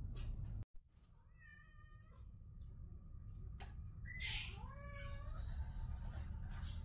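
Kitten meowing twice: a short, even call about a second in, then a longer call that bends in pitch about four seconds in.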